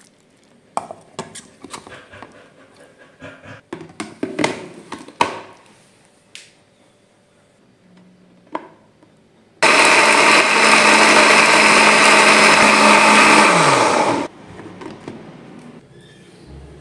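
Electric blender grinding shallots, garlic and red chilies with a little water into a spice paste. It runs loud and steady for about four and a half seconds, then its motor hum falls away as it is switched off. Before it come a series of light knocks and clicks.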